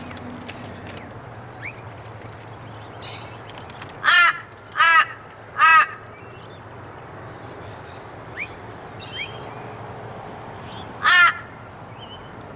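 A crow cawing: three harsh caws in quick succession about four seconds in, then a single caw near the end. Faint small-bird chirps and a steady low hum sit underneath.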